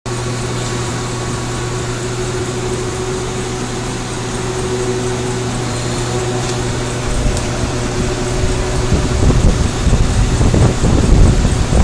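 Mazak M5 CNC lathe running with a steady machine hum; a low, uneven rumble builds from about halfway through and is loudest near the end.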